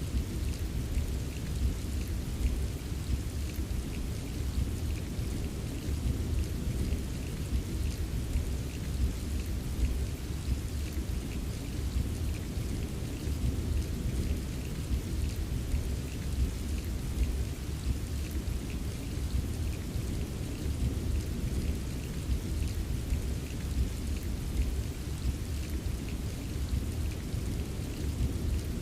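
Steady rain ambience: an even wash of rain with a constant deep rumble underneath and scattered drops ticking, with no break or single loud clap.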